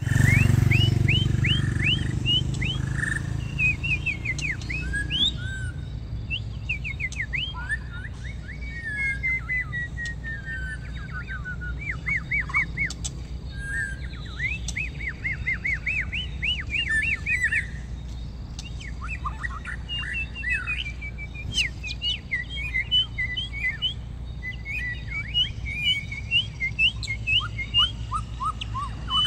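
Langkawi-strain white-rumped shama singing a long, varied song of rapid whistled notes, quick sweeping chirps and repeated phrases. A low rumble sits under the first few seconds.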